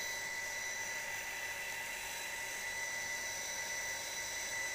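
Electric household water pump running steadily, its motor giving an even, high whine over a hiss. The sound is smooth, which the repairer puts down to the pump having been rebuilt.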